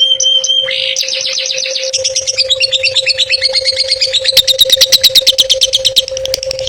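Songbird singing a fast, varied song of quick high chirps and trills, a short held whistle at the start and a rapid rattling run of notes in the middle, over a steady low hum.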